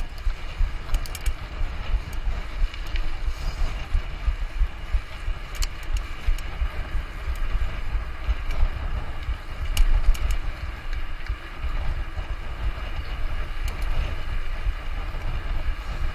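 Mountain bike being ridden over rough trail: a constant low wind-and-vibration rumble on the camera microphone with rattling from the bike and a few sharp clicks.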